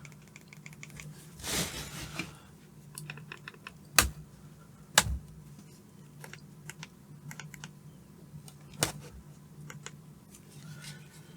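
Light clicks and taps of hands handling the plastic parts of an opened Xbox console, with a few sharper clicks about four, five and nine seconds in, over a low steady hum.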